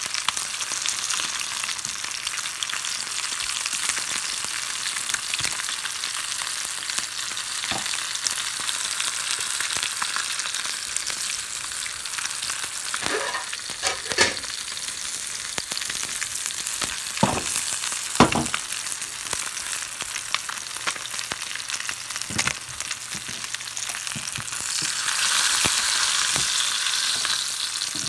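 Whole koi fish (climbing perch) sizzling steadily in hot oil in a skillet. A few sharp knocks from the utensils come about halfway through, and the sizzle grows louder near the end.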